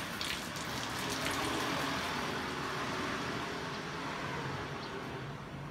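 Water running from a garden hose over a dog's wet coat and splashing on a tiled floor, a steady rush that thins out near the end.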